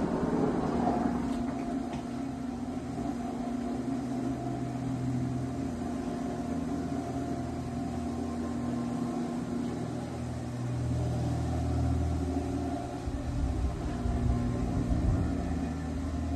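Motor of a ClearView motorized power screen running with a steady hum as the screen lowers across the sunroom opening.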